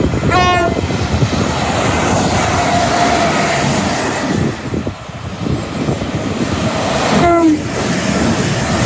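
Train running past at speed with loud rail and wind noise, sounding two short horn blasts: one just after the start and one about seven seconds in, the second falling in pitch.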